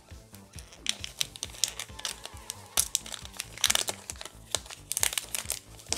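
Foil wrapper of a Pokémon card booster pack crinkling and crackling in the hands as it is handled and opened, starting about a second in.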